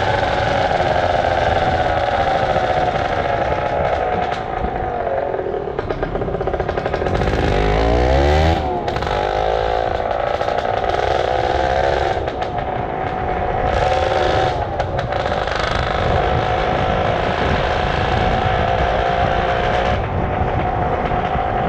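Superbike engine running on the move, its pitch sinking slowly at first. About seven seconds in the revs climb sharply and then drop off abruptly, after which it settles back to a steady cruise.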